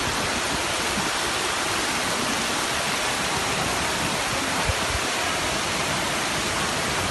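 Steady rush of heavy rain and floodwater running through a street, an even noise with no letting up. One brief low thump about two-thirds of the way through.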